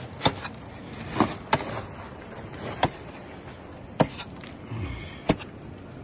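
Hammer blows on a steel chisel bar set into the rock, breaking out mineralised ore by hand: six sharp strikes, roughly one every second or so.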